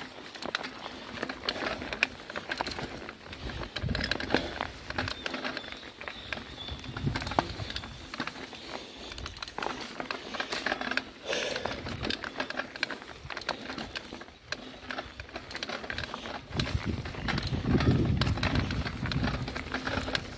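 Mountain bike rolling over a rocky dirt track: the tyres crunch on loose stones and the bike rattles over the bumps in dense, irregular clicks. A low rumble builds in the last few seconds.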